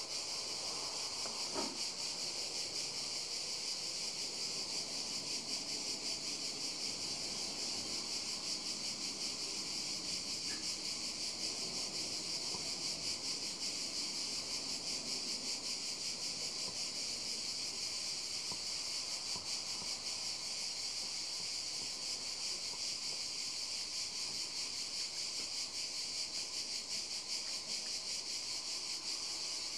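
A steady, high-pitched chorus of insects chirping, unchanging throughout.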